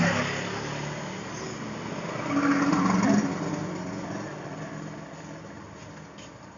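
A road vehicle passing, its sound swelling about halfway through and then fading away.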